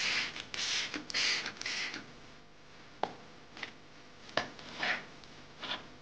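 Toy trigger spray bottle squirted four times in quick succession, each a short hiss, within the first two seconds. A few sharp plastic knocks and short rubbing sounds follow, as the bottle is put down and a toy iron is worked over cloth.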